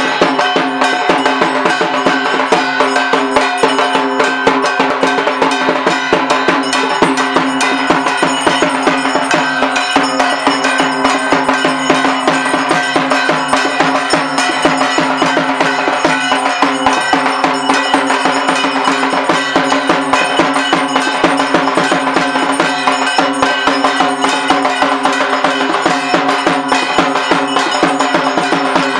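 Brass puja handbell (ghanti) rung rapidly and without pause during an aarti, a dense clanging with ringing tones, along with drum-like percussion.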